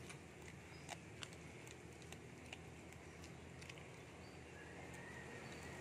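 Cat chewing a raw fish, faint irregular crunching clicks as it bites through flesh and bone.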